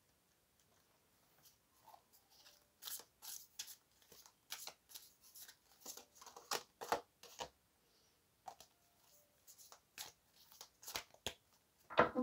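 A deck of tarot cards being shuffled by hand: an irregular run of quick papery snaps and flicks of card stock, starting about a second and a half in, pausing briefly past the middle, with a louder snap near the end.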